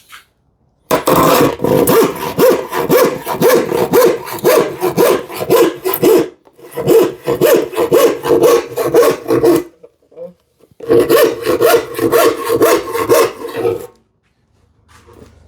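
Western-style hand saw cutting wood in three runs of quick, even back-and-forth strokes with short pauses between; it is a new crosscut-filed saw.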